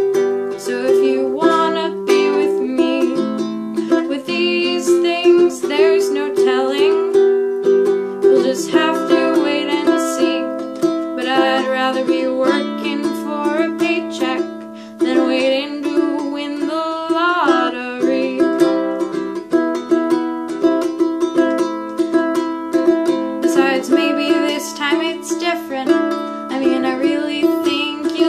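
Wooden ukulele strummed in a steady rhythm of chords.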